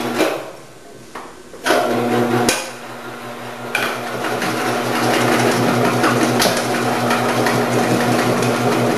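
A couple of knocks, then an electric vegetable cutter's motor starts about two seconds in and runs with a steady hum. From about four seconds, cucumbers pushed down the chute onto the 8 mm slicing disc add a louder rushing, chopping noise over the hum.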